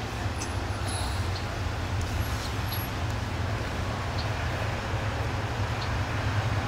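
Steady road traffic noise with a low rumble of passing vehicles.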